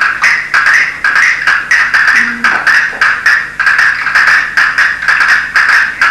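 Castanets played in quick rattling rolls and strikes, a dense clicking that comes in rhythmic groups about twice a second.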